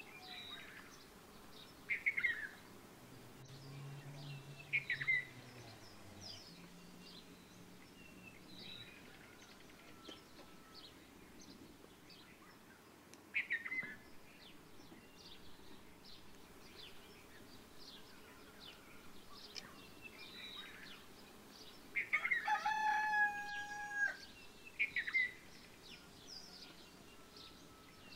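Small birds chirping now and then, and a rooster crowing once, a held call of about two seconds, near the end.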